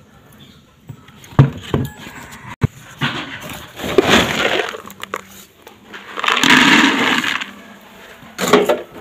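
Dry cattle feed pellets scooped by hand from a woven plastic sack and poured into a plastic bucket: a few knocks, then two rattling pours of a second or so each, with a shorter one near the end.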